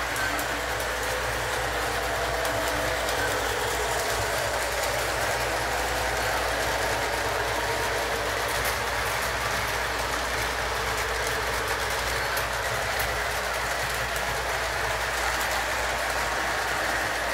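Model diesel locomotive running steadily on the layout's track, a continuous whir of motor and wheels on rail with a few faint clicks.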